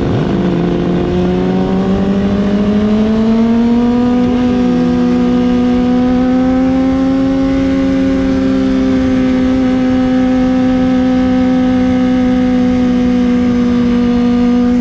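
Motorcycle engines at a steady cruise, heard from the rider's seat of a Honda sportbike with wind rush. The main engine note climbs over the first few seconds and then holds steady. A second bike's lower note drops about four and a half seconds in. The sound cuts off abruptly at the end.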